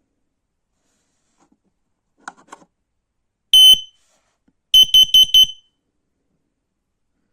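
X-Sense XC04-WX carbon monoxide alarm beeping: a few faint clicks, then one high-pitched beep, then a quick run of four short beeps, the four-beep pattern a CO alarm sounds.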